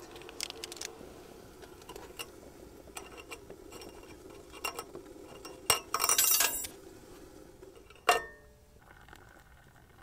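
Metal cookware clinking and scraping around a lit Trangia spirit burner: scattered light clicks, a short rattling scrape about six seconds in and a sharp clink about eight seconds in. Under them runs a low steady rush, which stops soon after the clink.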